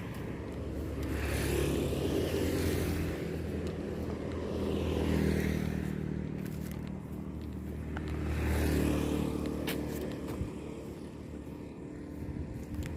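A small engine running steadily, its sound swelling and fading every few seconds.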